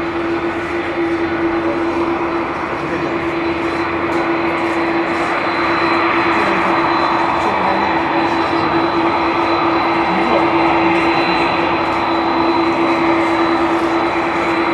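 Airbus A330-300's General Electric CF6-80E1 turbofan engines running at taxi power: a steady jet whine over a rushing hum, a little louder in the middle as the aircraft turns to face the listener.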